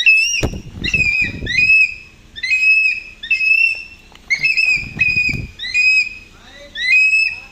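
A hawk calling over and over in short, shrill notes, mostly in pairs that repeat about once a second, with low rumbles in between.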